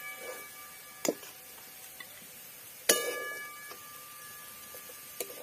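A metal spatula strikes and scrapes an aluminium kadai while moving fried potato pieces. There are two ringing clanks, about a second in and about three seconds in, the second the louder, with a few lighter clicks after.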